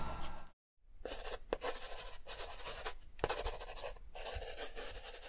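Pen-on-paper writing sound effect: a run of short scratchy scribbling strokes starting about a second in, following a moment of dead silence.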